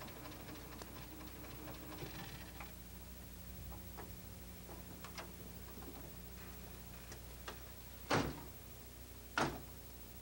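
A car door being opened: two sharp knocks about a second apart near the end, over a low steady hum with faint scattered ticks.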